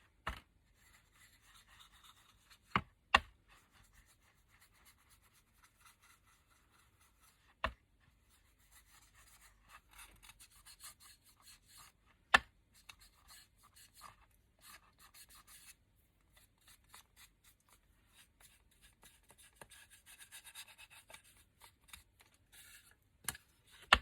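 A brush rubbing colour onto the edge of a small wooden board in short, scratchy strokes with pauses. A handful of sharp taps or knocks come in between, the loudest about three seconds in and around the middle.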